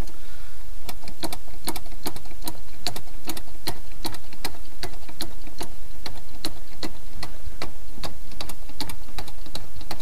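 Accelerator pedal pumped repeatedly to prime the RV's engine for a cold start: a run of sharp clicks from the pedal and throttle linkage, two or three a second, over a steady low rumble.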